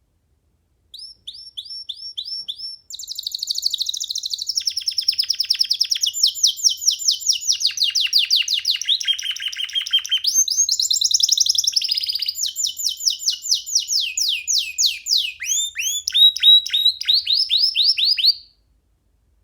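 Young domestic canary singing one long song of rapid trills, each a fast run of repeated sweeping notes, switching to a new trill every second or two. It starts about a second in and stops abruptly near the end.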